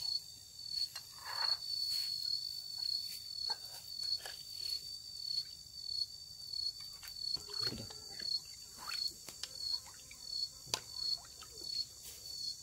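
An insect's steady, high-pitched trill, wavering in a regular pulse, with scattered light clinks and taps of a metal ladle against bowls.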